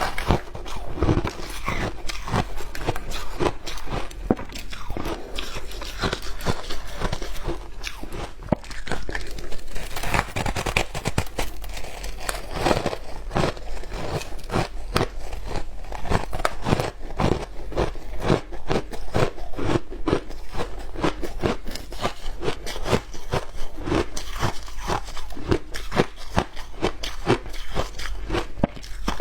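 Frozen matcha ice being bitten and chewed, a continuous run of sharp, rapid crunches and cracks.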